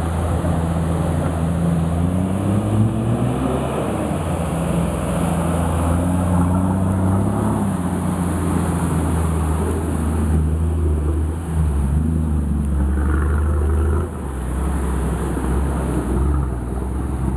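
Off-road 4x4 SUV's engine revving up and down under load as it churns through a deep mud hole. A steady low drone runs beneath the rising and falling pitch.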